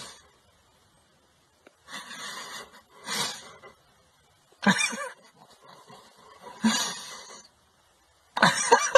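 A dog making about six short, breathy huffs and grumbles, spaced by pauses. The last one carries a brief pitched whine.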